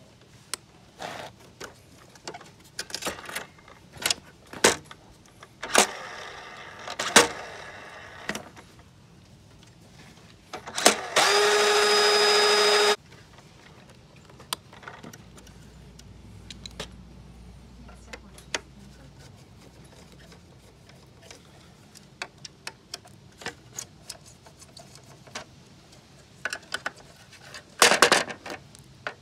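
Clicks and knocks of hands working on a scooter's deck and power switch; about eleven seconds in, a small electric motor whines at a steady pitch for about two seconds and then cuts off suddenly.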